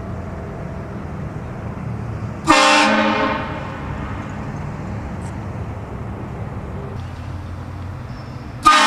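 HornBlasters Shocker 228VX train horn blasting twice, each blast a loud chord of several tones: a short one about two and a half seconds in and another starting near the end, over the low rumble of the car.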